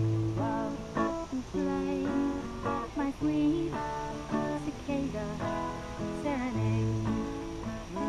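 Acoustic guitar music: strummed and plucked chords with low bass notes under them, and a melody whose notes bend in pitch.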